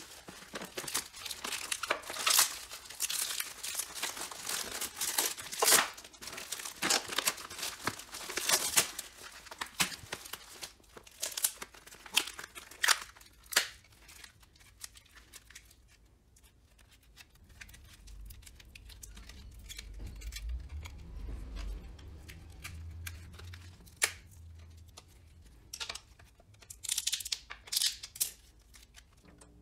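Plastic bagging film and green release layers crinkling and tearing as they are peeled off a carbon fiber shift surround, busiest in the first half, then a few sharp scissor snips near the end.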